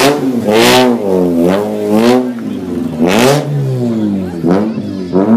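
Mazda RX-8 rally car's engine revving hard, its pitch repeatedly rising and falling, with loud rasping peaks about a second in and again after three seconds.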